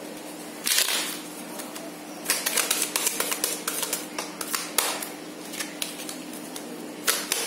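A deck of playing cards being shuffled by hand: a quick burst of card noise about a second in, then a rapid run of crisp card-on-card flicks and snaps for a couple of seconds, and another burst near the end. A faint steady hum sits underneath.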